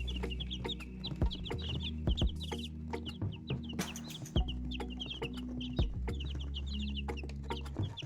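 A group of young chicks peeping continuously, many short high peeps in quick succession, with scattered sharp taps. Steady low tones run underneath.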